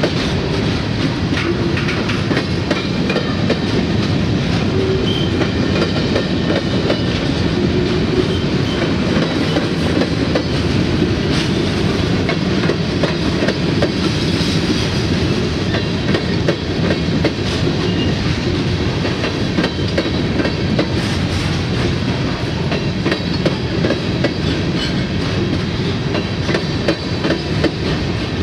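Freight train of covered grain hopper cars rolling past, a steady rumble of steel wheels on rail with clicking as the wheels cross rail joints.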